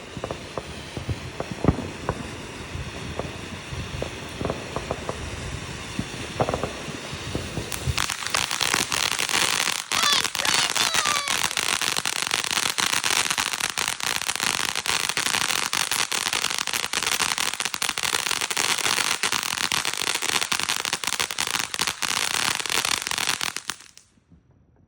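TNT Fireworks 'Taco' novelty firework burning. It gives scattered pops and crackles for the first several seconds, then from about eight seconds in a dense, loud crackling that cuts off suddenly near the end.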